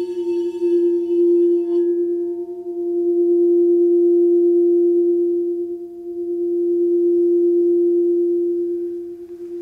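Handheld clear crystal singing bowl ringing on after being played: one strong sustained note with faint higher overtones that slowly swells and fades twice. A brighter upper shimmer dies away about two seconds in.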